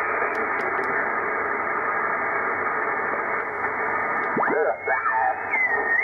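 Icom IC-7300 receiving static hiss on the 40-metre band in lower sideband, with the top cut off sharply by the receive filter. About four seconds in, as the tuning dial is turned, a whistle sweeps up in pitch and a mistuned sideband voice comes in garbled and pitch-shifted.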